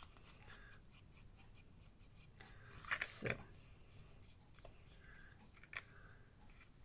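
Faint handling sounds of a wet paintbrush working over watercolour paper and the paper being moved, with a louder short rustle about three seconds in as the sheet is laid down on the table.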